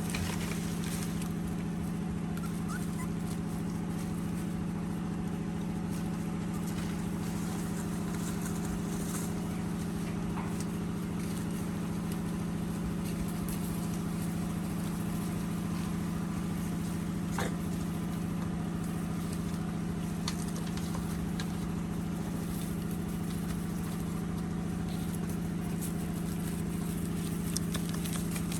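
A steady low motor hum, running evenly throughout, with a few faint clicks over it.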